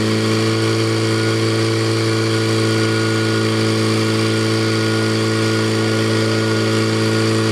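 Portable fire pump engine running steadily under load, pumping water through the hoses to the nozzles.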